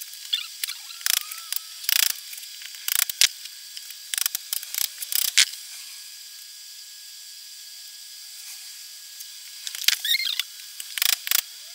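Sharp clicks, scrapes and short squeaks of a screwdriver prying at the plastic housing and circuit board of a small ultrasonic fogger, in irregular bursts with a quieter stretch in the middle.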